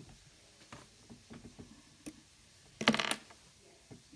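Small plastic toy accessories handled on a tabletop: scattered faint clicks and taps as pieces are fitted onto a Stikbot figure's hand clip, with a brief louder clatter about three seconds in.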